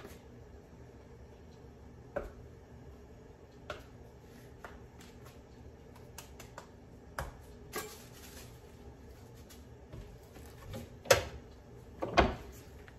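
Scattered taps and knocks of hands working a wooden tortilla press and masa dough, with two louder knocks near the end.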